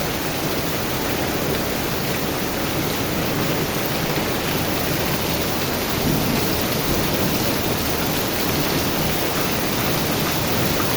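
Very heavy rain pouring down as a steady, dense hiss.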